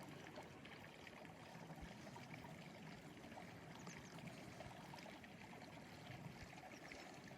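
Faint, steady flow of a small mountain creek.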